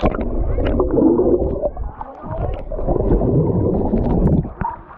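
Muffled churning and bubbling of pool water, heard through a camera held half under the surface as it is swept through the water; it falls away sharply near the end.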